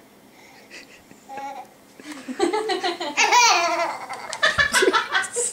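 One-year-old girl laughing: a couple of small sounds at first, then a run of loud, choppy baby laughter starting about two seconds in.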